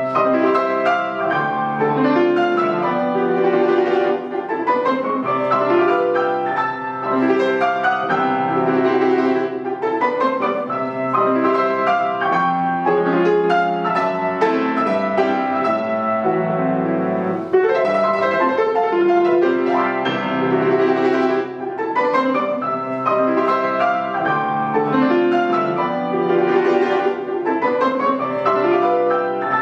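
Estonia grand piano played solo: a fast, continuous classical piece full of running arpeggios that sweep up and down the keyboard.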